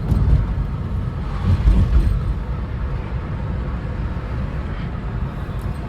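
Low, steady rumble of a VW Polo 1.2 MPI three-cylinder petrol car being driven, heard from inside the cabin, with louder swells about a quarter second in and near two seconds in. The owner says the engine is misfiring and lacking pickup.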